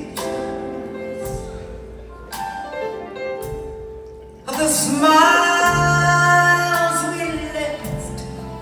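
A woman singing live into a microphone with band accompaniment, amplified through the hall's PA and heard from the audience seats. About halfway through her voice jumps into a loud, long held note.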